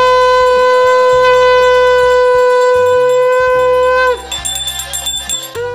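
Conch shell (shankh) blown for the aarti in one long, steady, loud note that cuts off about four seconds in, followed by a short second blast near the end.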